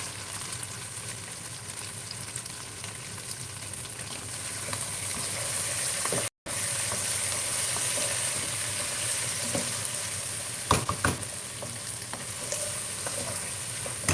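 Chicken wings sizzling steadily as they fry in a pan. The sound cuts out briefly about six seconds in, and a couple of sharp knocks come around eleven seconds in.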